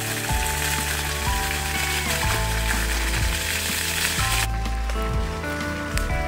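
Water rushing from a hose onto the ground, an even hiss that cuts off suddenly about four and a half seconds in, over background music with sustained low notes.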